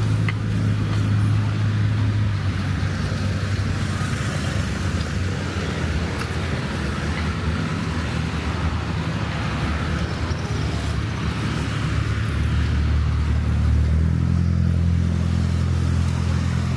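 Street traffic of cars and motorbikes running past, with a steady engine hum whose note shifts about twelve seconds in and again near fourteen seconds.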